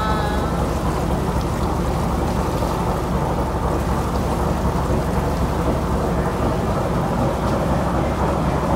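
Steady low rumble with a noisy rush over it, aboard a small ferry under way in the rain: the boat's engine drone mixed with wind and rain noise.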